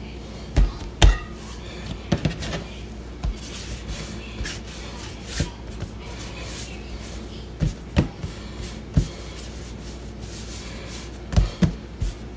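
Hands rolling and shaping bread dough for bolillo rolls on a work surface: a rubbing sound with scattered light knocks at irregular intervals.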